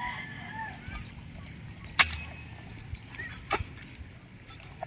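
A metal digging bar striking and prying into wet tidal mud: a few sharp knocks, the loudest about two seconds in and another about a second and a half later, with wet mud sounds between. A faint animal call is heard near the start.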